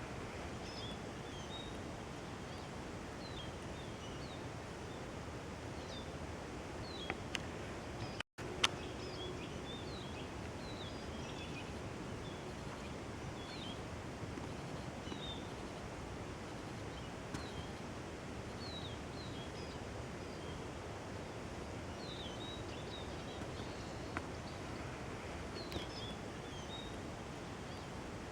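Forest ambience: a steady noise haze with many short, high small-bird calls scattered throughout, and a few isolated sharp clicks, the loudest about eight and a half seconds in. The sound drops out for an instant just before that click.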